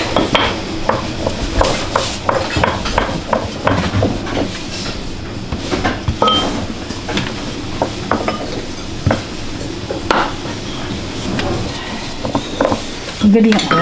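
Thin wooden rolling pin knocking and rolling on a floured wooden board as dumpling wrappers are rolled out: quick, irregular wooden clacks, a few a second.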